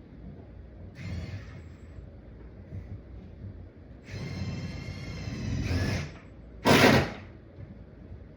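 Power drill running in two spells while boring into a wooden joist: a short whine about a second in, then a steadier run of about two seconds near the middle. A short, loud burst of noise follows it.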